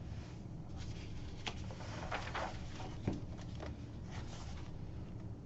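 Quiet room tone with a steady low hum, broken by a few faint short clicks and rustles.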